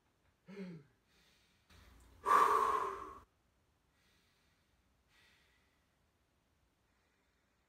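A man breathing deeply during a stretch: a short voiced chuckle-like sound near the start, then one loud exhale lasting about a second, then a few faint breaths.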